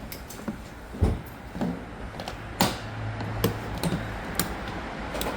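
Hand tools knocking and clinking against metal suspension parts under a car during disassembly. The clinks are irregular and sharp, with the loudest a little over two and a half seconds in.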